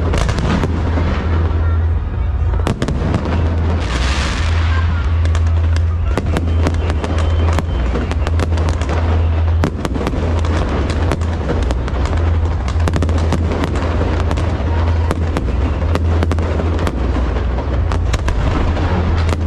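Aerial fireworks display: a dense, unbroken run of booming shell bursts and sharp cracks, with a brief hissing swell about four seconds in.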